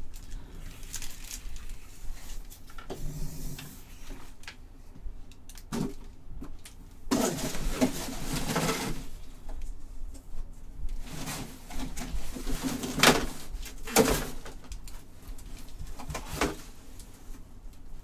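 Trading card packs and cards being handled: wrappers rustling and cards shuffling, in several short bursts.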